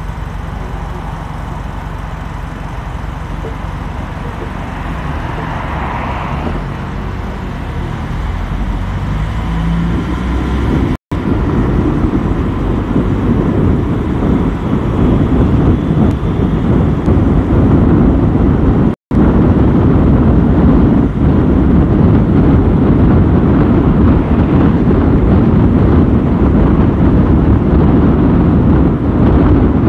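Car driving on city roads: a steady rumble of engine and road noise that grows louder and rougher about a third of the way in. The sound cuts out completely for a split second twice.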